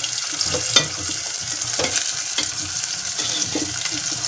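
Chopped onions frying in hot oil in a pan, sizzling steadily while they brown, with a spoon scraping and knocking against the pan as they are stirred.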